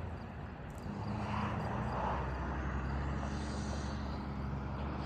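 Road traffic passing: a vehicle's engine hum and tyre noise, swelling about two seconds in over a steady low rumble.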